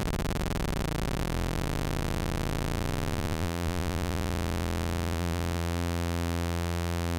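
Roland 540 envelope/LFO module's LFO at its fastest setting, sped up further by an offset being slowly dialed in. It starts as a rapid flutter and turns into a steady low synth buzz about two-thirds of the way through.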